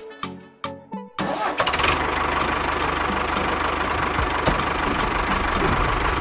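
A few plucked music notes, then about a second in a motor starts and runs steadily with a fast low pulse and a loud, even rattle.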